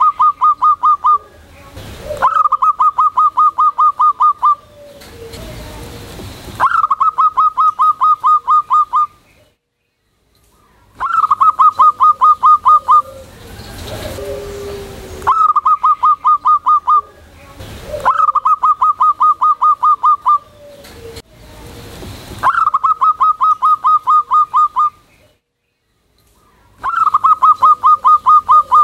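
Zebra dove (perkutut) singing: eight bouts of rapid, evenly spaced staccato cooing notes, each bout about two seconds long, with short pauses between.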